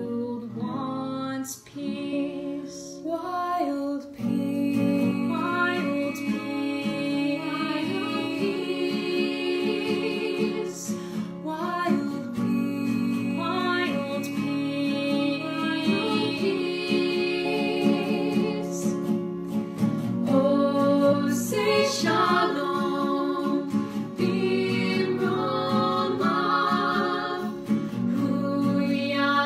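Women's voices singing together in harmony over an acoustic guitar accompaniment.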